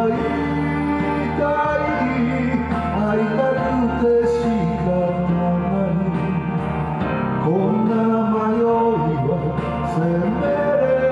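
A man singing a Japanese pop ballad into a karaoke microphone over the karaoke backing track.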